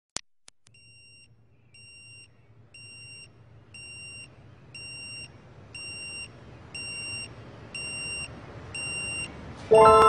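Electronic alarm clock beeping, one short high beep about once a second, each louder than the last; music comes in suddenly near the end.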